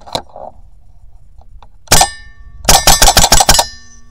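Shots from an Edgun Leshiy 2 .25-calibre PCP air rifle at a close target, each a sharp crack followed by a metallic ring. One comes about two seconds in, then about seven in quick succession within under a second.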